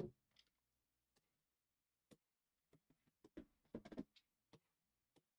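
Faint scattered taps and clicks of cardboard trading-card hobby boxes being handled on a table, with a knock at the start and a cluster of clicks about three and a half to four seconds in.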